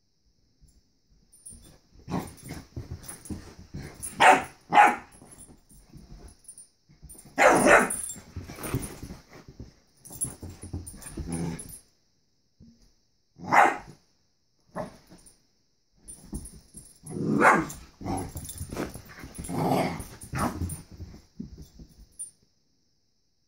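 Puppy barking in repeated bouts at a balloon, with quieter growling between the barks.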